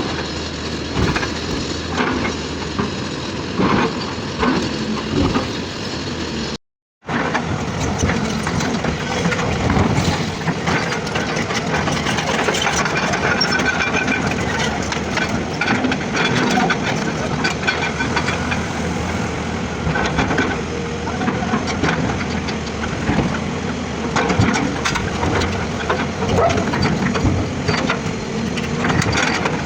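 Heavy earthmoving machinery, an excavator and a loader, with their diesel engines running steadily, over irregular knocks and scraping of rock. The sound cuts out completely for a moment about seven seconds in.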